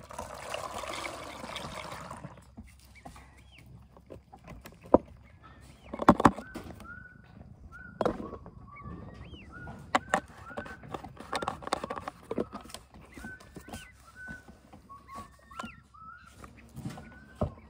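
Rustling right on the microphone as a cat's fur brushes against the camera at first, then several sharp knocks as it is bumped. Short chirping calls repeat throughout.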